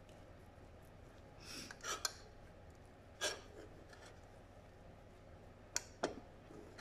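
Fingers pressing and rubbing a cod fillet into a dry breadcrumb-and-herb coating on a ceramic plate: faint rustling scrapes, a few short ones standing out, and two sharp ticks near the end.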